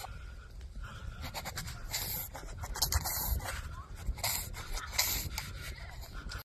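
Wind buffeting the phone's microphone in gusts, with a steady low rumble and rustling bursts of clothing and fur against it.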